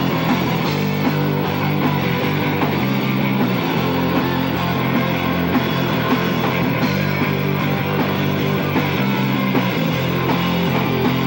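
A live rock band playing loud: electric guitars strummed hard over a drum kit, with a steady beat and no break.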